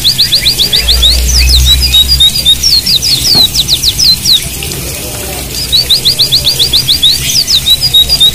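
White-eyes (pleci) singing: fast runs of high, sharply down-slurred whistled notes, with a short break about five seconds in.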